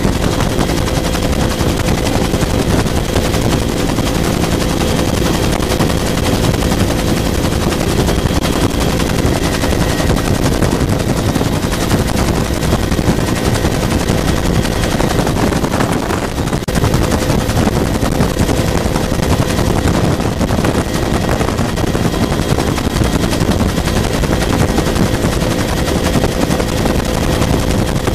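Bell UH-1 Huey helicopter in flight, heard from inside the cabin: a steady, loud, rapid beat of the rotor blades over the turbine's thin steady whine.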